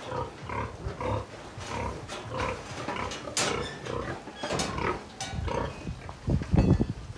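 Sow grunting in short, regular grunts, about two a second, while rooting and feeding, with a louder, deeper sound near the end.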